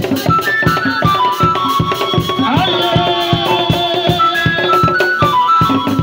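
Live church music: a set of three tall wooden drums beaten in a steady quick rhythm, about four strokes a second, under a melody of held high notes.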